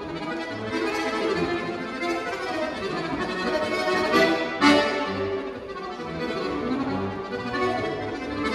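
Diatonic button accordion playing a lively polka solo, a busy melody over separate bass notes, with a sharp accented chord about halfway through.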